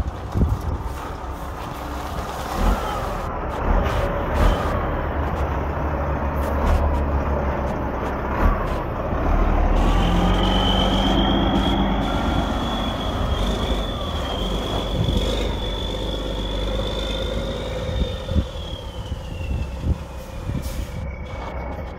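Freightliner Columbia truck's 12.7-litre diesel engine running under way on a test drive after repair, a steady low rumble with scattered clicks and knocks. About halfway through a high whine comes in, holds, then slides down in pitch near the end.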